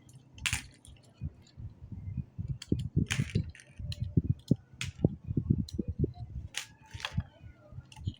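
Irregular small clicks and taps of tools and parts being handled on a Samsung Galaxy A12's opened phone board as its camera modules are taken out, with a handful of sharper clicks among soft handling knocks.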